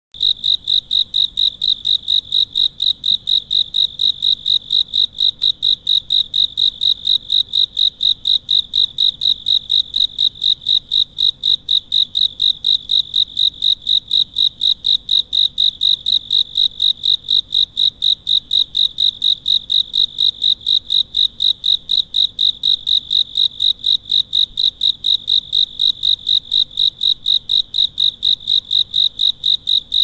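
A cricket chirping steadily: even, high chirps, about three a second, without a break.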